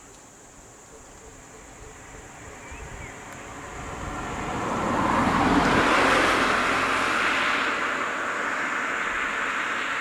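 A road vehicle passing by: its engine and tyre noise swells to its loudest about six seconds in, then eases off a little.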